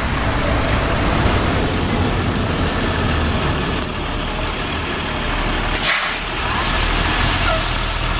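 Bus engine running steadily, with a short air-brake hiss about six seconds in.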